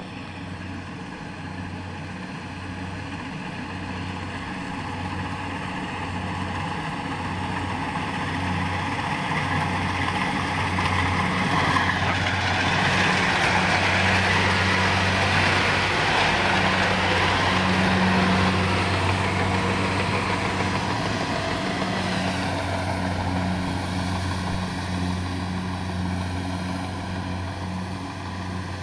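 Rice combine harvester running, a steady engine hum with a rushing machine noise on top; it grows louder as the harvester passes close by about halfway through, then fades somewhat.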